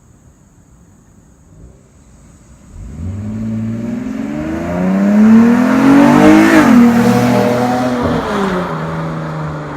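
Dodge Challenger GT's 3.6-litre V6 through a Flowmaster American Thunder cat-back exhaust, coming in about three seconds in and accelerating past. The pitch climbs to its loudest point, drops sharply and then holds lower as the sound fades.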